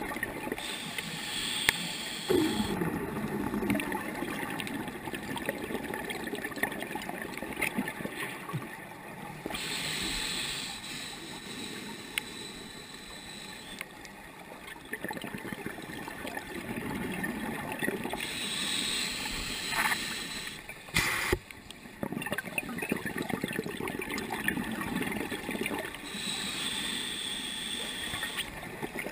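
Scuba regulator breathing underwater: a hissing inhale through the demand valve, then a long bubbling exhale, repeating about every eight seconds. A short sharp knock comes about two-thirds of the way through.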